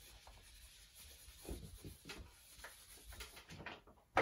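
Faint, quick rubbing of a whiteboard eraser wiping a whiteboard, sped up, with a sharp knock at the very end.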